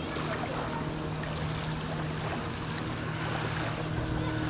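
Lakeside ambience: a steady wash of wind and water noise with a low, steady hum underneath.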